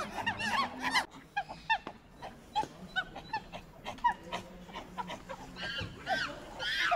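Monkeys giving short, high squeaky chirps: a quick run of them at the start, scattered single calls in the middle, and a louder run near the end.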